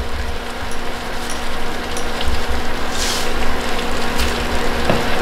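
Peas and potatoes in masala cooking in a pot on an induction cooktop: a steady frying sizzle under a low hum, with a couple of light clicks near the middle.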